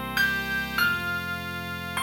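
MIDI ringtone played by a MediaTek phone's built-in synthesizer: a slow melody of held notes over a sustained bass, the bass changing about a second in.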